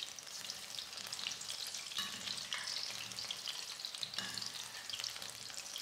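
Batter-coated bondas deep-frying in hot oil in a steel kadai: a steady, soft crackling sizzle, with a slotted spoon stirring them through the oil.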